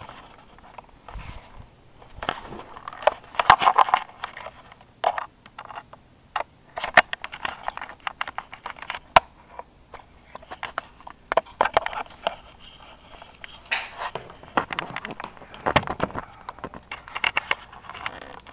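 Small lap dogs barking in short bursts of yaps every couple of seconds, with sharp clicks and scuffling between the bursts.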